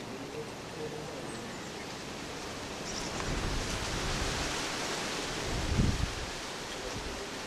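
Steady outdoor background hiss that grows louder about three seconds in, with a brief low rumble about two seconds before the end.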